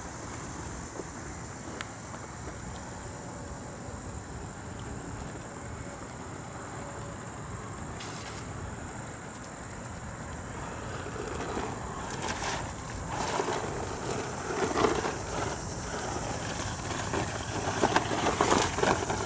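Hosim 4x4 RC truck driving through mud and water. The churning and splashing grow louder and more irregular from about eleven seconds in.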